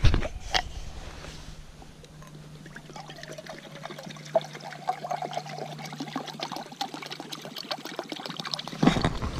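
Water poured from a plastic bottle into a Jetboil stove's cooking cup, a steady stream that stops near the end.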